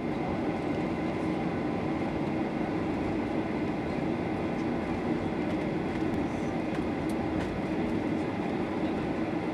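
Steady hum and rumble inside the cabin of a Boeing 737-800 taxiing, its CFM56 engines running at idle with the wheels rolling over the taxiway, a few faint ticks now and then.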